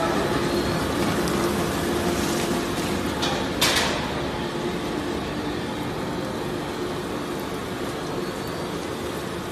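Waste shredder and conveyor line running: a steady industrial machine drone with a constant hum. A short sharp clatter comes a little under four seconds in.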